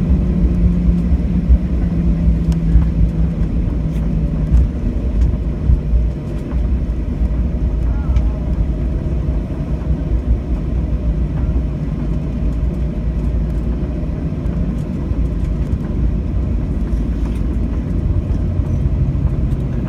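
Cabin noise of a Boeing 737-800 taxiing after landing: a steady low rumble from the idling CFM56 engines and the rolling airframe. A low hum drops away about four seconds in.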